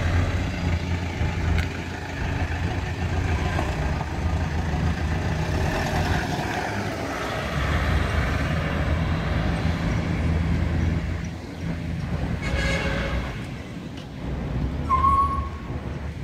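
Minibus engine running as the van drives off and away, a steady low rumble. A short high tone sounds near the end.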